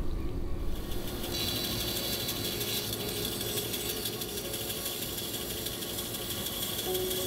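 Bandsaw running and cutting into a block of yellow box burl; the hiss of the blade in the wood sets in about a second in over the steady hum of the saw.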